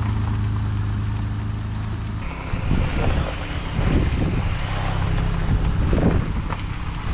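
Car engine running steadily, then about two seconds in the sound changes abruptly to the rough rumble of the car driving, with irregular knocks and rattles.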